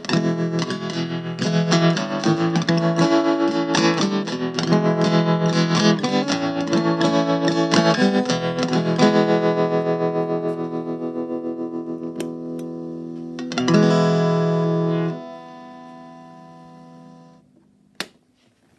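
Electric guitar played through a c.1958 Watkins Westminster valve amplifier with its tremolo on: a run of picked notes and chords pulsing rapidly in volume, ending on a held chord that rings, drops and fades away. A single sharp click near the end.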